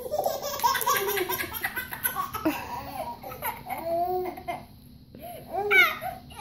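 Baby laughing and giggling in repeated bursts, with a short pause about five seconds in.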